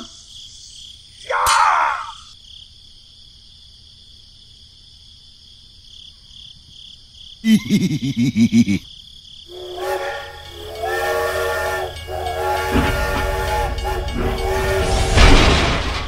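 Cartoon sound effects: a short falling swoosh, then from about ten seconds in a steam-train whistle blowing in long steady blasts over a train rumble that grows louder toward the end.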